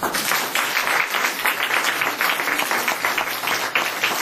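Audience applauding. The clapping starts suddenly and keeps up steadily as a dense patter of many hands.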